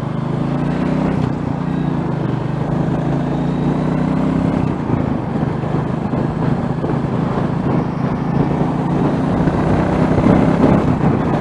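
Motorcycle engine running steadily at low revs while ridden, with road and wind noise.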